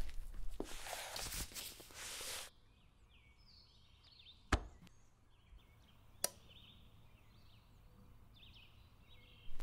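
Soft rushing outdoor ambience with faint chirps, cutting off sharply to a quiet room. There the turntable gives two sharp clicks about two seconds apart as a vinyl record is laid on the platter and the player is set going.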